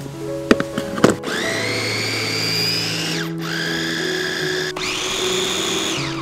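Electric food chopper blending pineapple chunks. A few plastic clacks as the lid and motor head are set in place, then the motor whines up in pitch and runs in three pulses.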